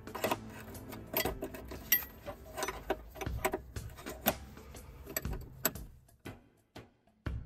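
Small metal clicks and clinks of an open-end spanner working a braided brake hose fitting at the strut bracket, several a second, thinning out after about six seconds, with a dull thump just before the end.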